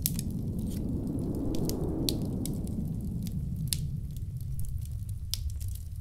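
Log fire crackling, with irregular sharp pops, over a steady low rumble of blizzard wind. A gust swells about two seconds in and dies away.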